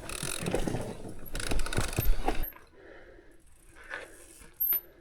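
Mountain bike coasting down a rocky trail: the rear freehub's ratchet clicking, with the bike rattling and knocking over rocks for about the first two and a half seconds, then much quieter with a couple of short clicks near the end.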